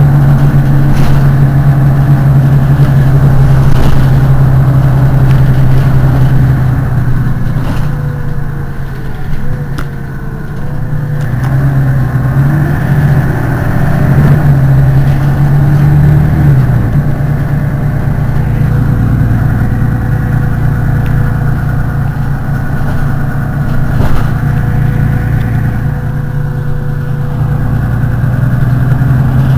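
Mercedes-Benz Citaro city bus's rear-mounted engine idling at a standstill, a loud steady low hum. The hum dips slightly in loudness and then shifts a little in pitch about halfway through.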